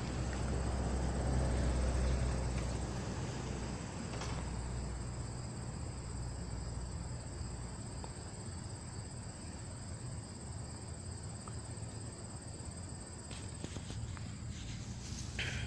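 A steady chorus of insects trilling at a high pitch. A low rumble sits under it for the first few seconds.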